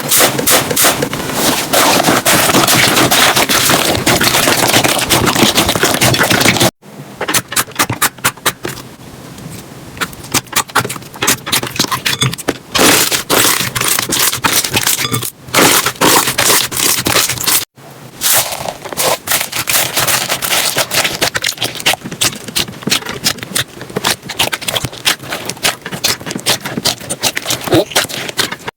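Slime being pressed and squeezed by hand, giving dense crackling and popping. It comes in three stretches split by abrupt cuts about seven and eighteen seconds in, and the middle stretch is quieter, with sparser pops.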